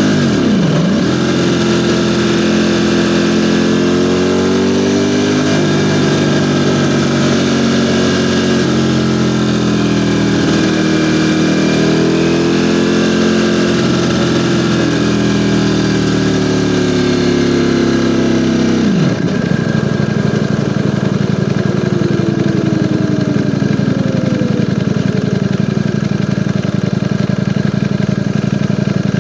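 Ducati Panigale V4 sportbike's V4 engine: revs drop sharply just after the start, then rise and fall repeatedly while riding, and about two-thirds in fall away to a steady idle.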